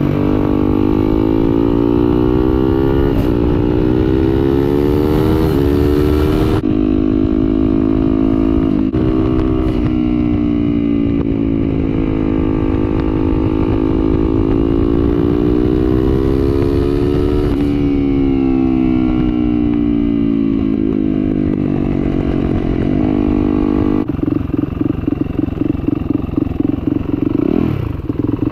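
The single-cylinder four-stroke engine of a turbocharged Yamaha YZ450F supermoto runs at road speed, its pitch rising and falling with throttle and gear changes, over a steady rush of wind on the microphone. Near the end the engine note turns choppy and uneven.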